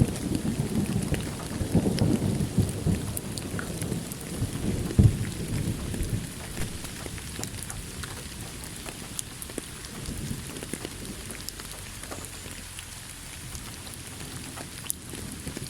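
Thunder rumbling under steady rain, the roll dying away over the first five or six seconds; after that only the rain hiss with scattered drop ticks remains.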